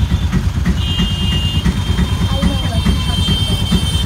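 Auto-rickshaw engine running with a fast low chugging, heard from inside the open passenger compartment. A thin steady high whine joins about a second in.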